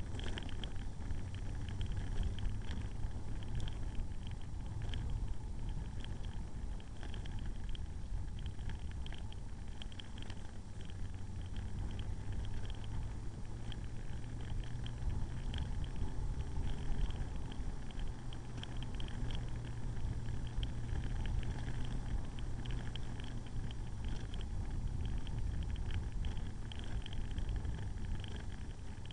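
Motorcycle engine running steadily at low road speed, heard from on board with wind noise on the microphone. A light, rapid ticking runs over the low rumble.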